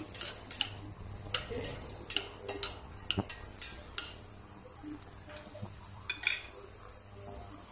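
A utensil stirring French beans in a stainless steel pot, with irregular clinks and scrapes against the metal, mostly in the first four seconds and a few more around six seconds.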